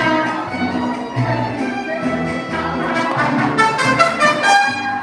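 Background music with brass instruments, trumpets to the fore, over a repeating bass line.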